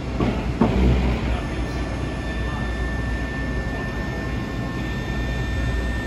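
Schröder SPB EVO up-down CNC folding machine running with a steady low hum, with two short knocks in the first second and a thin steady whine that comes in about a second and a half in.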